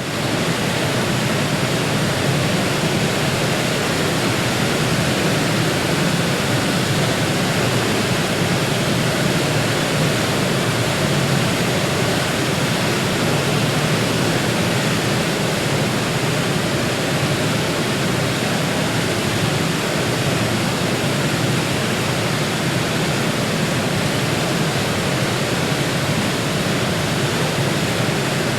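Heavy waterfall: a steady rush of falling water, with a deep rumble under the hiss.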